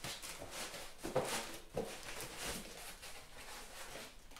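Polystyrene foam packing and a cardboard box being handled: irregular rustles and scrapes, a few louder ones between one and three seconds in.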